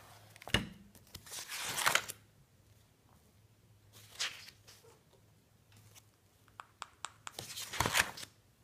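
Pages of a large spiral-bound paper sketchbook being turned, the sheets swishing and rustling about a second in and again near the end, with a short rustle in between.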